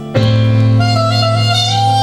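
Soprano saxophone playing a sustained melody over a low accompaniment chord that comes in sharply just after the start; the saxophone line steps up in pitch near the end.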